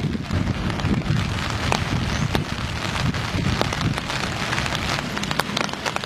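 Rain falling in a storm: a steady hiss with many sharp taps of drops striking close by, over a continuous low rumble.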